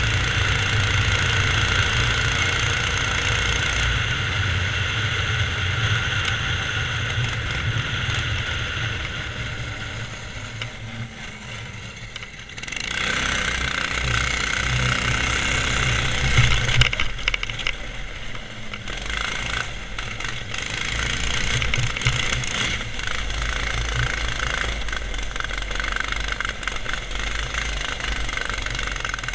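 Go-kart's Subaru EX17 single-cylinder four-stroke engine running under throttle as the kart drives, heard from on board. The engine eases off and goes quieter about ten seconds in, then picks back up at about twelve seconds, running rougher with a few loud jolts a few seconds later.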